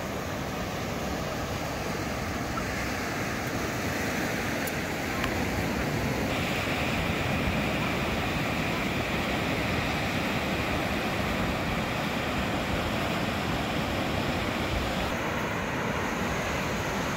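Ocean surf breaking and washing up the shore over sand and rocks: a steady rush of waves. Its tone shifts a few times, about three and six seconds in and again near the end.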